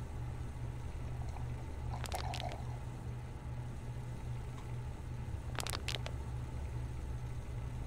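Foil snack bag crinkling in the hands in two short bursts, about two seconds in and again near six seconds, over a low steady drone.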